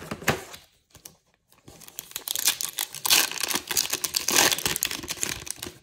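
Foil wrapper of a baseball card pack being torn open and crinkled by hand: a short crinkle at the start, then dense crackling from about two seconds in until just before the end.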